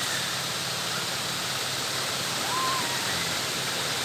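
Steady rush of flowing water, with a brief faint distant voice about two and a half seconds in.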